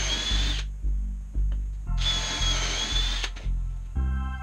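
Power drill running in two short bursts, its high whine dipping slightly in the middle of each run, over background music with a steady bass beat about twice a second.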